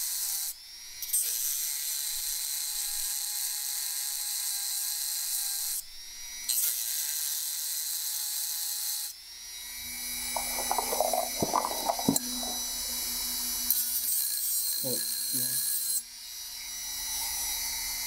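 Dremel rotary tool whining at high speed while dressing the end of a cut-down safe-dial spindle. It dips and spins back up several times, and between about 10 and 13 seconds in it rattles and scrapes against the metal.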